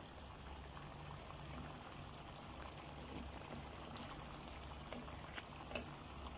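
Sweet-and-sour sauce with fried tuna simmering faintly in a pan on the stove: a soft, steady bubbling over a low hum, with a few small ticks late on.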